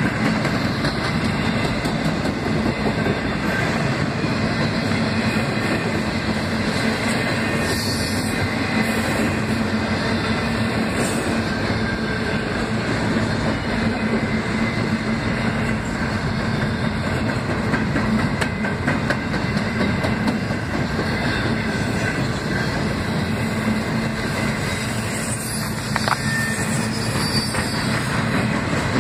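Freight train of empty double-stack intermodal well cars rolling past at steady speed: a steady rumble of steel wheels on rail with a running clatter of wheels over the rail joints.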